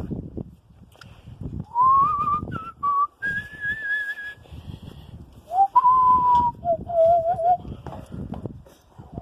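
A person whistling a string of short notes that slide and waver in pitch, some held for about a second, with a pause in the middle.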